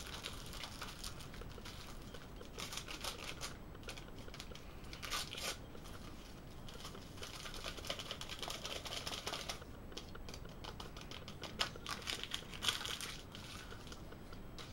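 Crinkling and tearing of a small foil sachet being opened and squeezed out by hand, in bursts of crackly rustling.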